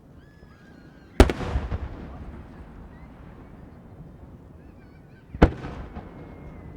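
Two aerial firework shells bursting about four seconds apart, each a sharp boom followed by a rumbling echo that dies away; the first is the louder.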